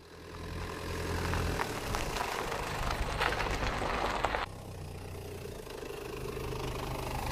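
A car engine idling steadily with a low hum. From about a second and a half in to about four and a half seconds in, rustling noise and a few clicks sound over it.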